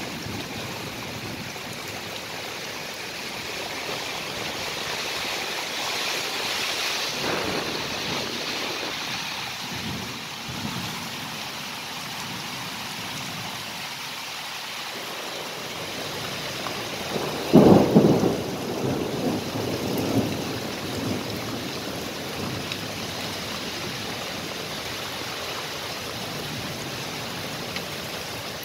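Heavy rain pouring steadily, with thunder rumbling several times; the loudest thunderclap comes a little past the middle and rolls on for a few seconds.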